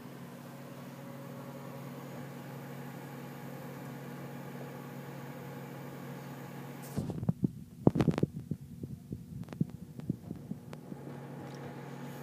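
Rival microwave oven running with a steady hum while it cooks. About seven seconds in, several seconds of irregular low thumps and knocks are louder than the hum, then the hum continues alone.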